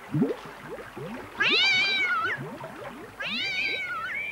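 Cartoon cat meowing twice, two long drawn-out meows, the first about a second and a half in and the second near the end. Before them comes a quick run of short rising tones, the first and loudest at the very start.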